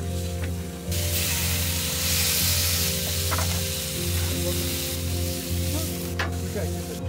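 Marinated meat sizzling on the hot grate of a portable gas grill, starting about a second in, with a short clack near the end as the grill lid is shut.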